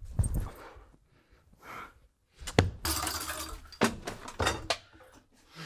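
Hurried rummaging through household things: a string of sharp knocks and thumps with clattering as objects are pushed and shuffled aside, busiest about three seconds in.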